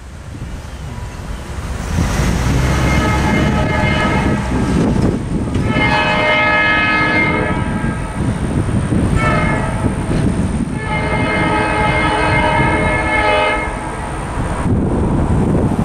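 Locomotive horn sounding the grade-crossing signal: two long blasts, one short, then a final long blast, each a chord of several tones. It is the warning that a train is approaching the crossing.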